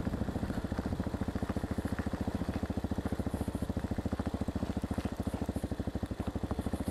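Hawk 250's single-cylinder engine idling with an even, rapid putter.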